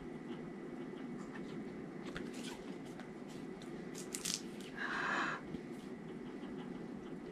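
Eyeshadow palette and its cardboard packaging being handled: scattered small clicks and taps, two sharp clicks about four seconds in, then a brief scraping rustle about five seconds in, over a low steady background hum.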